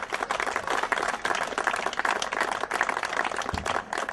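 A small crowd applauding, with many overlapping hand claps.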